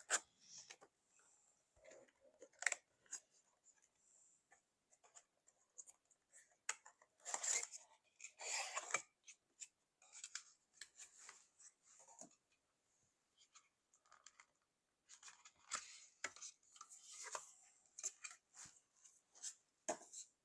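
Hands opening and handling a nail-kit case and its packaging: faint, irregular rustles, scrapes and small clicks, with clusters around the middle and again near the end.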